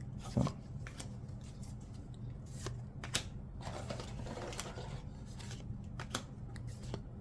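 Trading cards being handled and flicked through one by one: soft scattered clicks and rustles of card stock, over a faint steady low hum.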